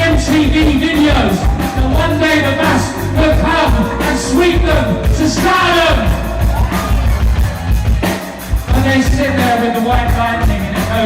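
Live punk rock band playing loudly, with a singer's lead vocal over guitars and drums; the sound drops off briefly about eight seconds in.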